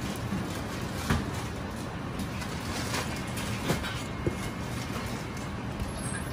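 Chinese cleaver slicing through a raw prawn and knocking a few times on a plastic cutting board, over a steady low hum.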